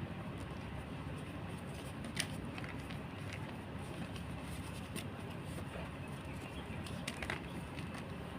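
A handful of short, sharp crunches of gym chalk being crushed, spaced irregularly over the several seconds, the loudest about two seconds in, over a steady low background rumble.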